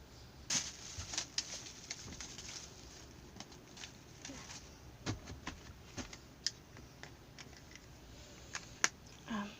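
Scattered light clicks, taps and soft knocks of small objects being handled and set down on a tabletop, with a few faint squishy rustles in between.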